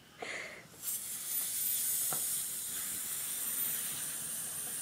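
Helium hissing out of a balloon's neck as it is inhaled through the mouth: a steady hiss that starts about a second in.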